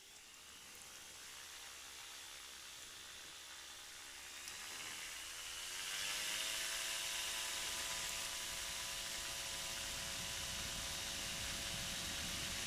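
Weight-shift microlight trike's engine and propeller throttling up for the takeoff run. The pitch rises in two steps, the second about five seconds in, then holds steady at takeoff power with a growing hiss of air.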